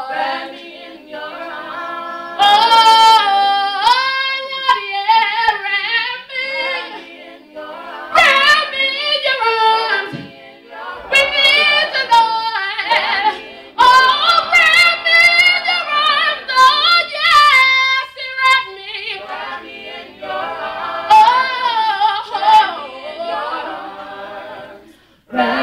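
A small gospel vocal group singing unaccompanied: a woman's lead voice sings long sliding runs over the group's backing harmony.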